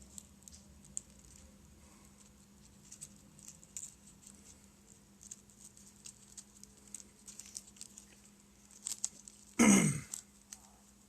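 Small plastic bags crinkling and light clicking as tiny resin-printed model pieces are handled, over a steady low hum. A short, much louder burst comes near the end.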